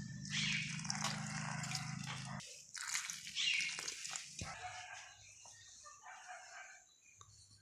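A rooster crowing, with a low steady hum under the first couple of seconds that then stops.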